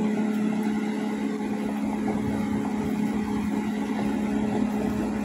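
Tracked excavator's diesel engine running steadily, a constant low hum with a rumble under it.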